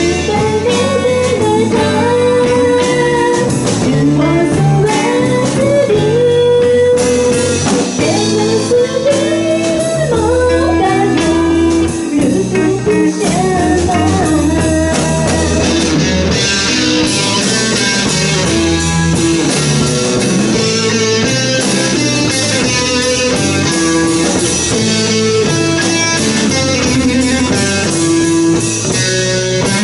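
Live rock band playing: electric guitars with a woman singing over them, the guitar and voice lines sliding in pitch during the first half, with brighter high-end noise entering about halfway through.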